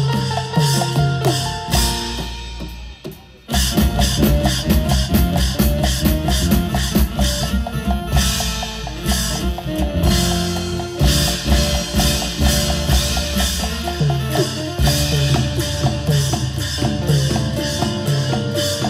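Percussion-heavy music with drums keeping a dense, driving rhythm under pitched melodic lines. About two seconds in it thins to a quieter passage, then comes back in full about three and a half seconds in.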